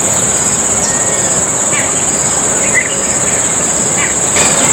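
Steady, high-pitched drone of insects with a few short bird chirps scattered through it, over a constant background hiss.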